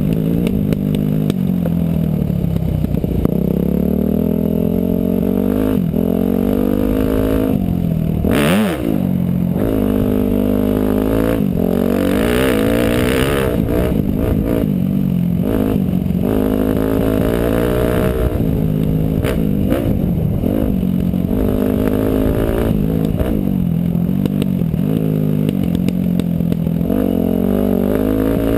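Motorcycle engine under way, its pitch rising and falling over and over as the throttle opens and closes. About eight seconds in the revs drop sharply and climb again, with a short rush of noise.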